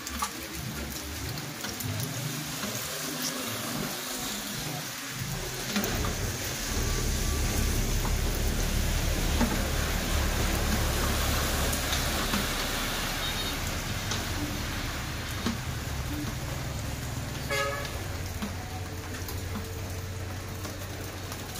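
Steady rain falling on a paved road and leaves, an even hiss. A low rumble comes in about six seconds in and holds until near the end, and a brief toot sounds about seventeen seconds in.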